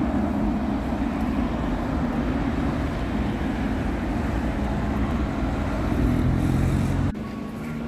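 City road traffic: cars and vans driving past, a steady rumble of engines and tyres that drops suddenly to a quieter level about seven seconds in.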